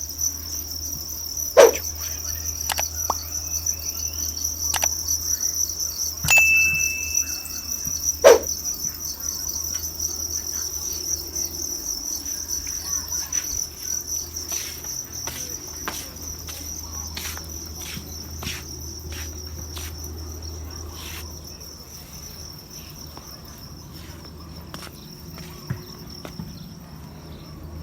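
Steady chorus of crickets chirping, with scattered sharp clicks and taps over it and a short high beep-like tone about six seconds in.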